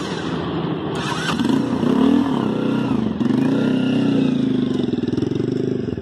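Motorcycle engine of a Hayabusa-styled replica bike revving, its pitch climbing and dropping several times, then fading near the end.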